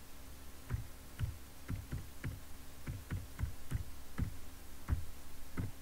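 Typing on a computer keyboard: about a dozen separate keystrokes at an uneven, unhurried pace.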